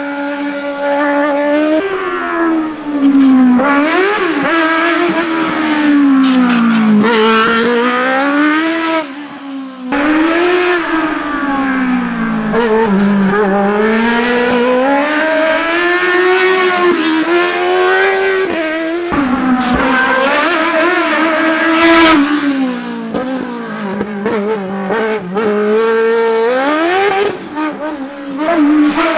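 Single-seater race car engine revving hard, its pitch climbing and dropping over and over in short bursts as the car accelerates and brakes between cone chicanes.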